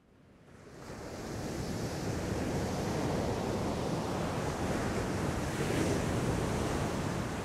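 Ocean surf: waves breaking on rocks, a steady rush that fades in over the first second or so.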